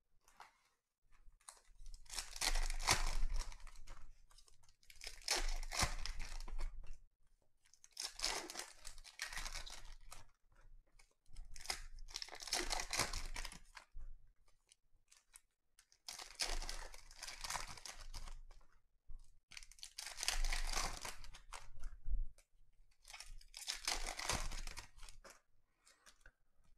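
Foil trading-card packs (2020 Panini Donruss Optic football) being torn open and their wrappers crinkled, one pack after another. There are about seven bursts of tearing and crinkling a few seconds apart, with short quiet gaps between them.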